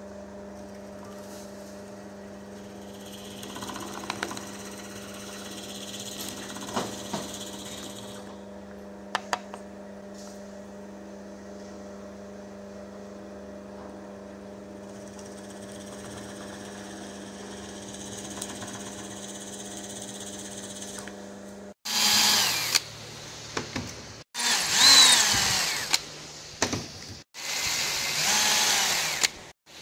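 A drill press running steadily while its bit bores into a soft wooden lure body, with a few light clicks. About three quarters of the way through it switches to a hand-held power drill, three short loud runs that speed up and slow down as it drills a small hole in the wood.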